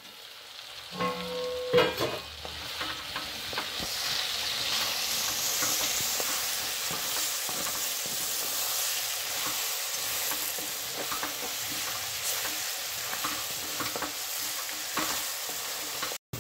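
Chicken pieces in spiced masala sizzling in a cast-iron kadai while a wooden spatula stirs and scrapes them. The sizzling grows louder over the first few seconds. Near the start a metal lid clinks a few times.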